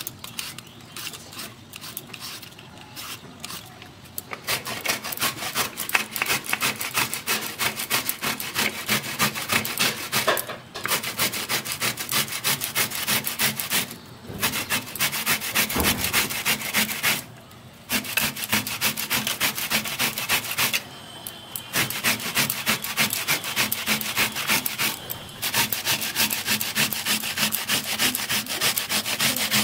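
Raw green banana being grated on a stainless-steel box grater: rapid back-and-forth rasping strokes, broken by a few short pauses. For the first four seconds there is only a quieter scraping of a vegetable peeler stripping the peel.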